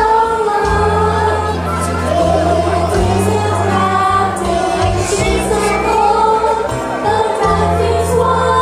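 A group of voices singing together, accompanied by an electronic keyboard playing long held bass notes.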